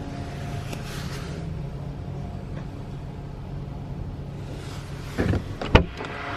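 Car engine running with a steady low hum; two short knocks about five seconds in, the second the loudest.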